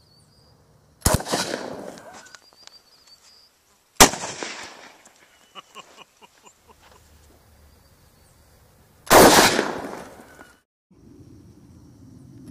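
Three 12-gauge pump shotgun shots, about a second, four seconds and nine seconds in, each trailing off over about a second.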